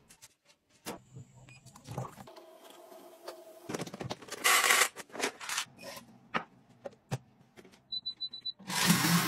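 Household gadgets being handled: scattered clicks and knocks, a brief rattling rush of dried beans from a rotating grain dispenser around the middle, then a quick row of high electronic beeps from a blender's touch panel near the end, followed by a louder steady running noise as the blender starts.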